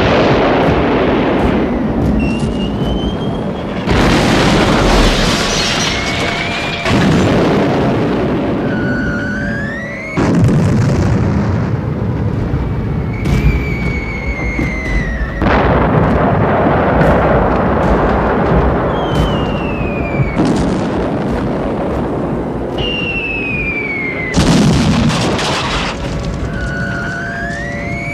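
Wartime air-raid sound effects: a series of bomb explosions, each a sudden blast with a long rumbling decay, about every three to five seconds. Whistling tones that slide in pitch come between the blasts.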